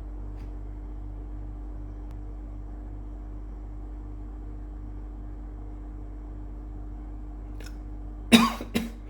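A person coughs twice in quick succession near the end, over a steady low electrical hum.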